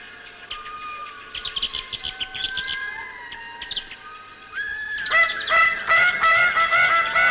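Indri lemurs singing: long, wailing, gliding calls. About four and a half seconds in, the calls grow louder into a dense chorus of overlapping wails. Short high chirps sound over them in the first few seconds.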